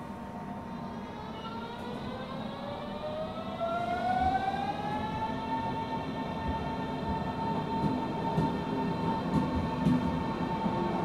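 Berlin S-Bahn electric train pulling out of a station: its traction motors whine, rising in pitch for the first few seconds as it picks up speed, then holding a steady tone over the rumble of the wheels on the rails. It grows louder about four seconds in.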